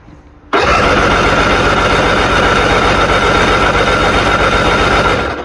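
Electric starter cranking an inline-six outboard motor with a compression gauge screwed into one cylinder, to take the cylinder's compression reading. It starts suddenly about half a second in and runs steady and loud for nearly five seconds with a high whine, then stops.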